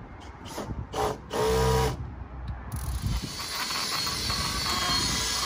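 Cordless drill with a foam polishing pad running against a boat's fibreglass gelcoat hull: a steady whir with a rubbing hiss, starting about halfway through. Before it come a few short knocks and a brief hum.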